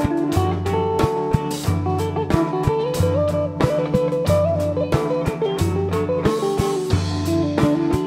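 A live band playing an instrumental passage: electric guitars, one picking a melody line, over a drum kit keeping a steady beat and a repeating pattern of low notes.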